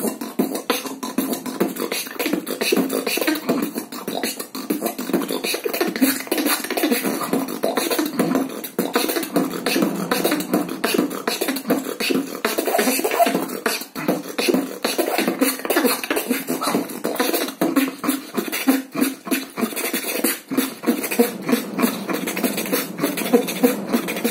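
Solo beatboxing by one male performer: a fast, unbroken stream of mouth-made drum sounds, sharp clicks and snaps, over hummed, voiced tones.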